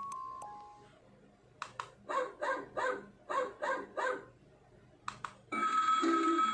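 Emoji alarm clock's small speaker playing a recorded dog-bark alarm sound: a couple of button clicks, then six identical barks at an even pace. After another click near the end, a louder electronic alarm tune starts.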